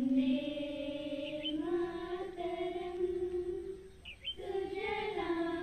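A voice chanting in long, held notes, in two phrases with a short break for breath about four seconds in.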